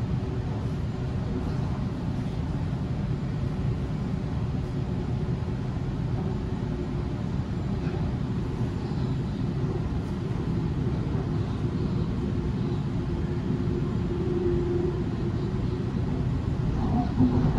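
Inside a moving Sydney electric suburban train: a steady running rumble of wheels on the track with a faint even hum.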